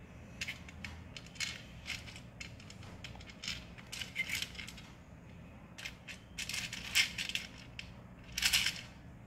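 Small plastic Mastermind code pegs clattering and clicking as fingers sift through them in the board's tray and push them into the holes. A string of short rattles, the loudest about seven and eight and a half seconds in.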